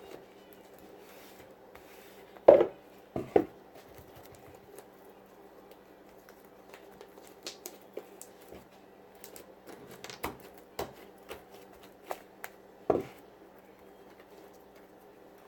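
Scattered clicks and knocks from handling slime-making bowls, spoons and beads on a table, a few of them sharper, over a faint steady hum.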